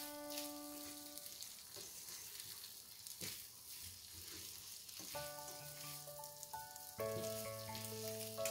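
Soaked rice flour sizzling in ghee in a non-stick pan as a silicone spatula stirs and pushes it around. Soft background music with held notes plays at the start and again from about five seconds in.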